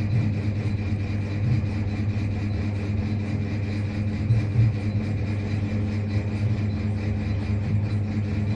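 WMARK NG-222 cordless hair clipper running steadily, a smooth, even motor hum with the blade buzzing, fairly quiet for a barber clipper.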